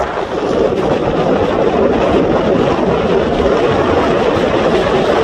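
Car driving at steady speed: continuous engine and road noise, loud and even throughout.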